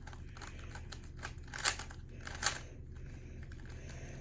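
Plastic puzzle cube being turned by hand during a speed solve: irregular quick clicks and rattles of the layers, two louder snaps about halfway through.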